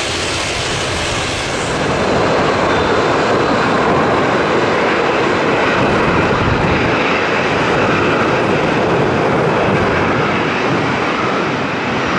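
Boeing 737-800 CFM56 jet engines running: a steady jet rush that steps up louder about two seconds in, as a 737 taxis close by at low thrust.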